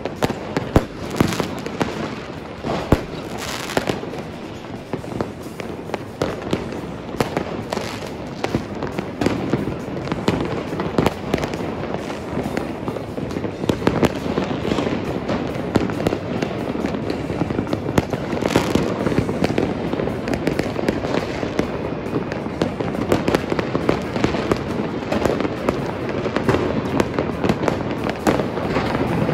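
Fireworks and firecrackers going off all around a city at once: a continuous barrage of overlapping bangs, pops and crackles, with louder single booms standing out now and then.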